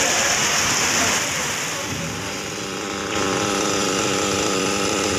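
Heavy rain hissing, then about three seconds in a switch to a 1/8-scale nitro RC buggy's small glow-fuel engine idling steadily.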